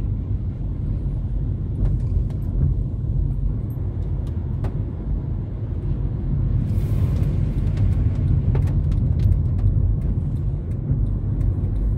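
Steady low rumble of a car's engine and tyres heard from inside the cabin while driving on a wet road, with a short hiss about seven seconds in as the tyres run through water on the road.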